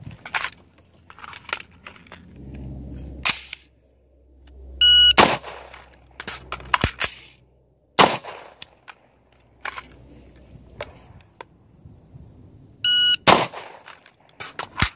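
AR-15 rifle shots, single and a few seconds apart, with an electronic shot timer beeping twice, each beep followed within a fraction of a second by a shot. Lighter clicks and rattles of magazine changes come between the shots.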